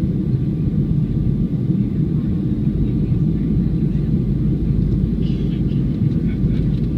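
Steady low rumble of a Boeing 737-300 heard from inside the passenger cabin: its CFM56-3 turbofan engines and the rushing airflow over the fuselage. A faint steady whine sits above the rumble.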